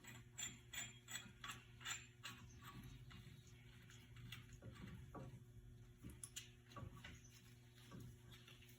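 Faint clicking of a hand tool being worked: an even run of about three clicks a second for the first two seconds, then scattered weaker clicks and taps.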